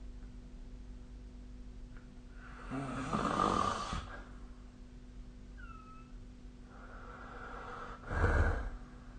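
Two snores from a sleeper. A rasping snore lasts about a second, a few seconds in. A shorter, slightly louder snore comes near the end.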